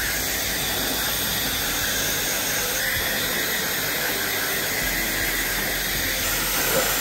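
Handheld hair dryer running steadily, a constant hiss of blown air as it dries wet hair.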